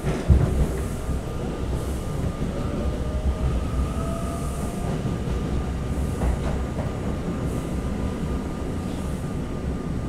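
Interior of a moving R32 subway car: steady low rumble of wheels and running gear, with a sharp bang just after the start and a faint rising motor whine. Another train passes close alongside about midway through.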